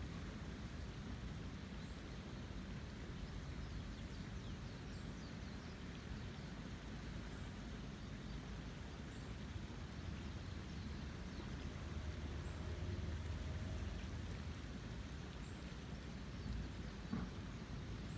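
A river in the rainy season rushing steadily, a low, even roar of water that swells a little about two-thirds of the way through. A brief knock comes near the end.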